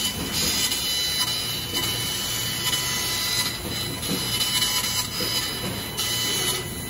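CNC laser cutter cutting 6 mm steel plate: a steady hiss of the cutting and assist gas at the nozzle, with a few faint high steady tones from the machine.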